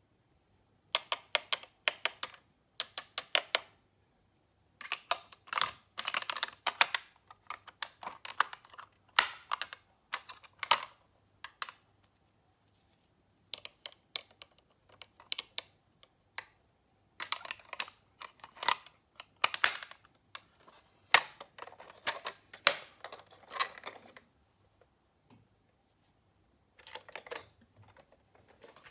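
Miniature toy cars clicking and clattering against each other and a hard surface as they are handled, in quick clusters of sharp clicks with short pauses between.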